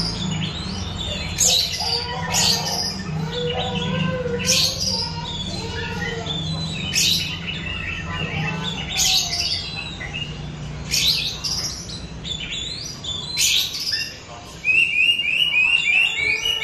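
Oriental magpie-robin (kacer) singing: a loud, sharp falling call repeated about every two seconds, with softer warbling notes between. Near the end comes a quick run of repeated chattering notes.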